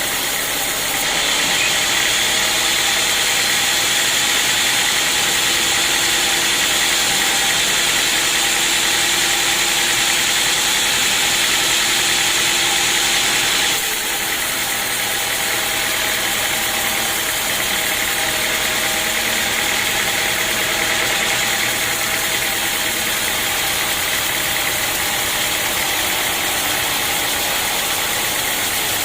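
Sawmill machinery running steadily with a motor hum and a dense hiss. About a second in it grows louder and hissier, and just before halfway it drops back abruptly to a steadier run.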